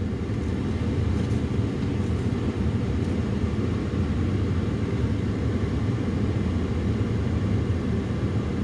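Steady low rumble of a running vehicle, with no change in level or pitch.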